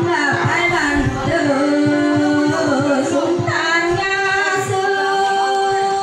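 Background music: a woman singing a Tai folk song (khắp) in long, bending held notes over a steady instrumental drone and a low, regular beat.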